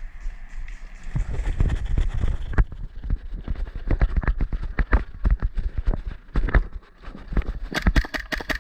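Footsteps of a player running, a quick irregular patter of thuds with some gear rattle. Near the end comes a rapid series of sharp clicks.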